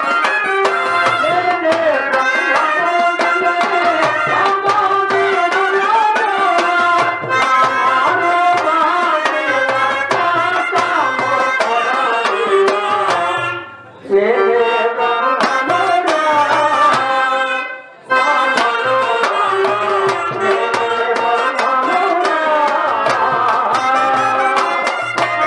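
Traditional Indian music: tabla drumming a steady rhythm under a wavering melody line. The music breaks off briefly twice, about halfway through and again a few seconds later.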